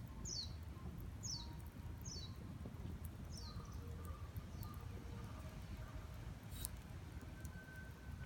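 Wood fire burning with scattered crackles and a low rumble, one sharp pop about two-thirds of the way through. A bird calls over it, a series of short falling chirps about once a second that stops about halfway.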